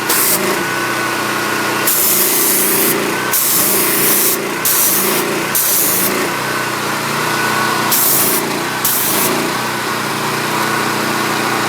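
Mi-T-M 3500 psi gas pressure washer's Honda engine running steadily. The high-pressure spray from the wand hisses on and off several times as the trigger is pulled and released.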